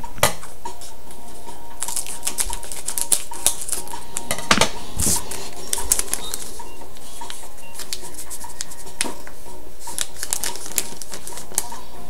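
Foil wrapper of a hockey card pack crinkling as it is opened and the cards are slid out, in irregular sharp crackles with a few louder ones.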